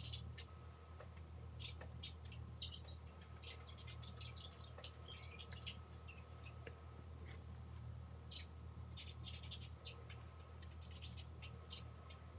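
Irregular light clicks and short scratchy squeaks of small tablet parts being handled and fitted during reassembly, over a steady low hum.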